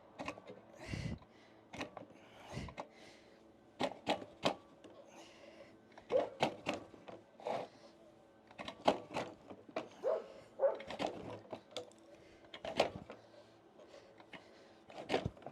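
Irregular clicks, knocks and short scrapes from the recoil starter of a Stihl BR380 backpack blower being tugged in short, jerky pulls, the rope catching before it can pull out fully. The engine seems to be locking up inside, which the owner suspects may be a seizure.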